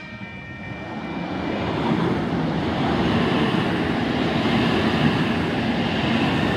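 Eight-car Oscar (H-set) electric multiple unit passing close by. Its noise builds over the first two seconds, then holds as a steady, loud rush.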